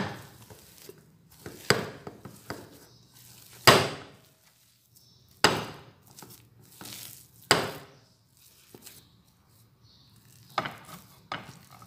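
A series of knocks and clatters of kitchenware against the worktop, about seven of them at uneven intervals, the loudest a little under four seconds in.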